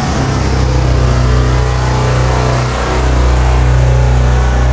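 Loud, steady deep rumble with a hiss over it, the sound design of the DTS digital sound trailer played over the logo. It swells slightly about three seconds in and holds.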